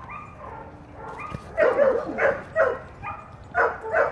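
German Shepherd dogs barking in play: a run of about six short barks, starting about a second and a half in.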